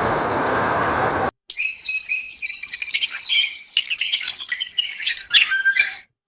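A steady rushing noise cuts off abruptly about a second in, then a small songbird chirps and twitters in quick, irregular phrases.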